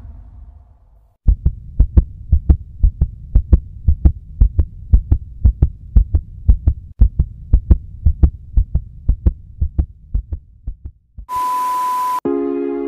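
Heartbeat sound effect: a steady, quick double thump that fades toward the end. It gives way to a short burst of static with a steady beep, and then synthesizer music begins.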